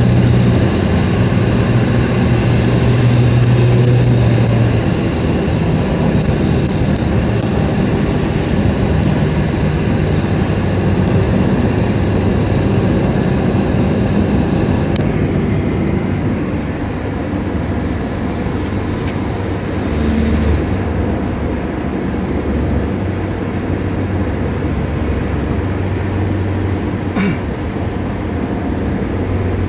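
Steady road and engine noise inside a moving taxi's cabin: a low drone under a rush of tyre and wind noise, with a couple of brief clicks.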